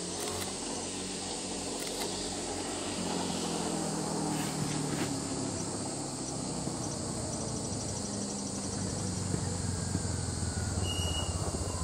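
Motorcycle engine approaching on a dirt road, its steady hum slowly growing louder as it comes closer, with insects chirping steadily in the background.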